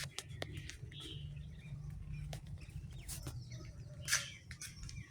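Daitoshi 56-inch ceiling fan running with a steady low motor hum, with birds chirping and scattered short clicks over it.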